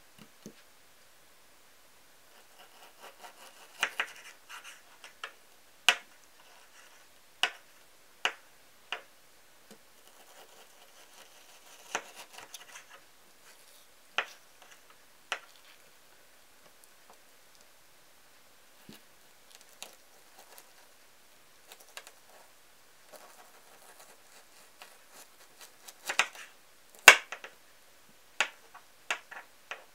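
Knife cutting raw chicken breast on a plastic-type cutting board: soft slicing through the meat with scattered sharp taps of the blade on the board, the loudest tap near the end.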